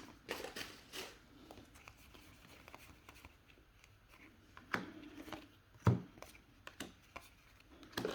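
Soft handling of trading cards: cards sliding over one another, with a few light taps about five to seven seconds in.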